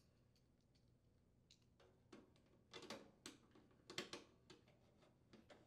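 Faint clicks and ticks of a nut driver turning screws into a refrigerator's sheet-metal rear access panel. The sharpest ticks come about three and four seconds in.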